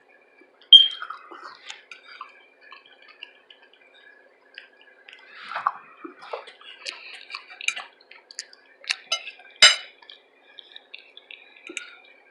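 Close-miked eating: soft chewing and wet mouth clicks, with scattered sharper clicks and clinks like cutlery on a plate, the sharpest about a second in and again near ten seconds.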